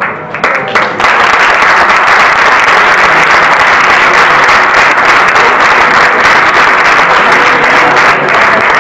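Audience applauding, swelling to full strength about a second in and then holding steady.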